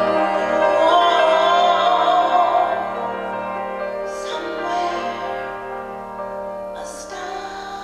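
A song: a voice singing long, wavering held notes over sustained chords, louder in the first few seconds, with two brief hissing sounds about four and seven seconds in.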